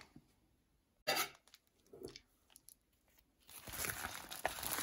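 Cross-stitch kit packaging being handled: a short crinkle about a second in, a few faint rustles, then steady crinkling and rustling from about three and a half seconds on.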